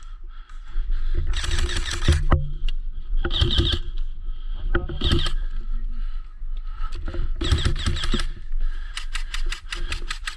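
Airsoft rifle firing in several short bursts, ending in a fast run of shots about nine seconds in.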